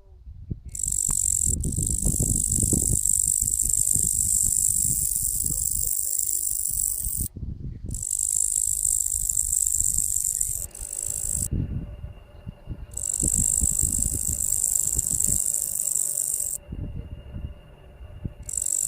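Insect song presented as locusts: a loud, high-pitched continuous buzz that cuts off and starts again abruptly, in stretches of several seconds, over a low rumble on the microphone. A faint steady hum joins about halfway through.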